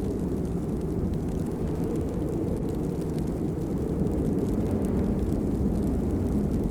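Steady rain, heard as an even, deep rumble with faint scattered patter ticks.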